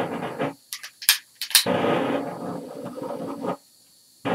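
A long butane lighter clicks sharply a few times about a second in, then gas rushes from a propane torch head for about two seconds and cuts off suddenly without catching into a flame. The gas flow may be set too high to light.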